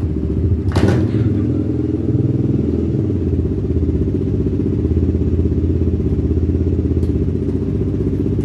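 Honda 300EX ATV's single-cylinder four-stroke engine running steadily, with a brief sharp noise about a second in.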